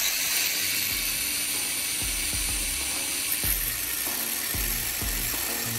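Angle grinder with a thin cut-off disc running steadily against a spark plug, cutting off its side electrode: a steady high, hissing whine of abrasive on metal.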